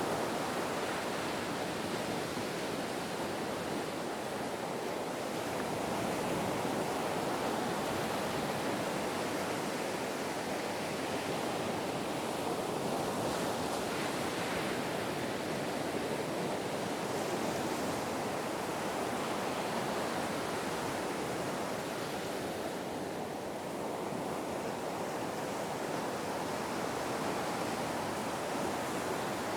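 Ocean surf: a continuous rush of breaking and washing waves that swells and eases gently.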